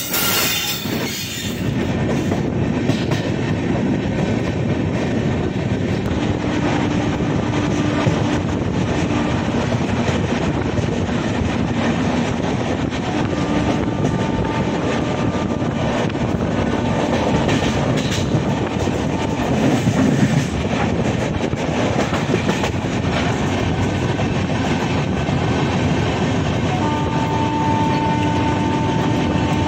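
Passenger express train running along the track: a steady rumble and clatter of coaches and wheels over the rails, with faint thin whines coming and going.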